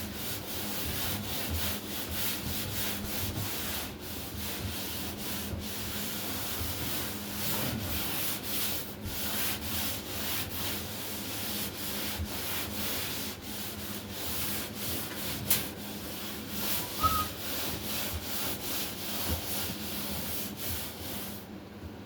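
Hand-sanding dried joint compound on drywall with a sanding sponge: a steady scratchy hiss in repeated back-and-forth strokes, with a few brief pauses.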